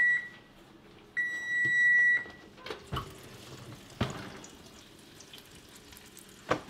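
Oven timer beeping: two steady, high-pitched electronic beeps about a second long, signalling that the set cooking time is up. A few clunks and knocks follow as the oven door is opened.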